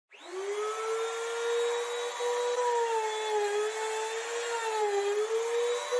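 Compact trim router switching on and spinning up to a steady high whine, then cutting across the end grain of a tree-trunk round in a flattening sled; its pitch sags slightly twice as the bit takes wood.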